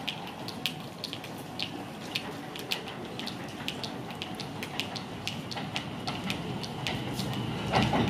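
Subway station ambience: a steady hiss and rumble with irregular sharp ticks. Near the end the noise swells and a high steady whine begins as a subway train approaches.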